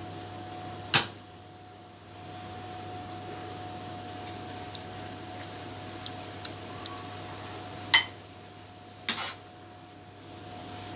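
Kitchenware clinking against a ceramic baking dish while lasagna noodle sheets are laid in: one sharp clink about a second in, then two more near the end, with a few faint ticks between, over a steady low hum.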